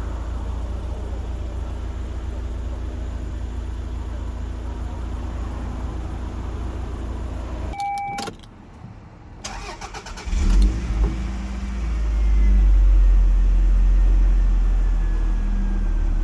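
Toyota MR2 (SW20) four-cylinder engine with an aftermarket Fujitsubo exhaust idling, then switched off about eight seconds in with a short electronic beep. A few clicks follow, then it is cranked and catches about ten seconds in, rising to a fast idle that eases a little near the end.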